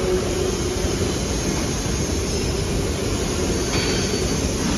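Steady machinery noise of a factory floor, strongest in the low range, with a short hiss near the end.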